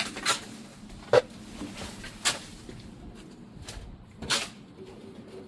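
About four sharp, irregularly spaced knocks or scuffs over a low background, with fainter handling noises between them.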